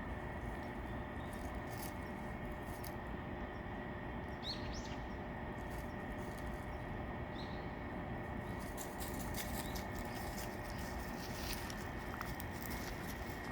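Outdoor ambience: a steady low rumble with a faint high tone, two short high chirps in the first half, and a run of soft crackling clicks through the second half.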